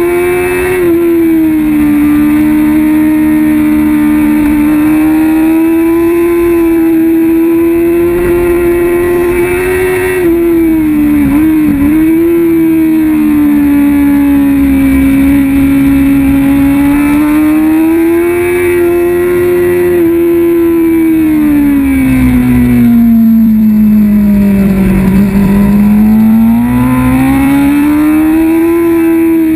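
Kawasaki ZX-6R 636 inline-four engine running at high revs on track, its pitch rising and falling with the throttle. Near the middle the note wobbles briefly, and later it drops steadily to a low, as when slowing for a corner, then climbs again toward the end.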